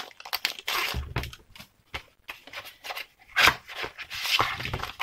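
Clear plastic packaging sleeve being opened and handled: irregular crinkling and rustling with sharp clicks, the loudest bursts about three and a half and four and a half seconds in.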